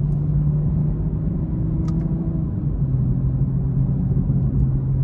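A BMW M240i's turbocharged inline-six engine running under way with road noise. The engine note holds steady, then drops a little in pitch about three seconds in.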